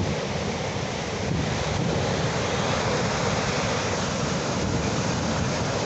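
Ocean surf washing in continuously, a steady rushing noise with a slight swell in loudness about a second in.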